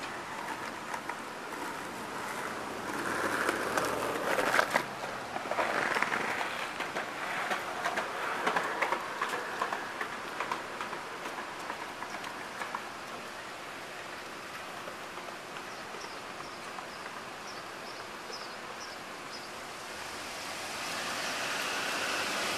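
Street ambience: steady traffic noise with scattered clicks, louder in the first half, a short run of high chirps about two-thirds of the way through, and a vehicle approaching near the end.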